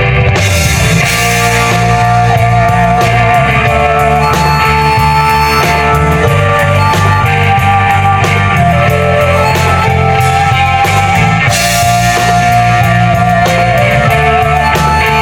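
Daegeum (Korean bamboo transverse flute) playing a slow melody with a wide vibrato on long held notes, backed by a fusion gugak band with bass and drums.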